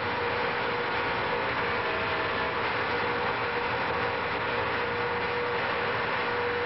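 Model aircraft engine running steadily at high speed, spinning the flywheels of a gyroscopic lift device: an even rushing noise with a steady whine.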